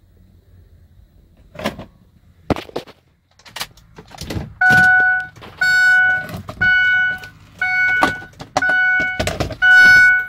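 Vehicle warning chime beeping six times at a steady pitch, about once a second, after a few sharp clicks.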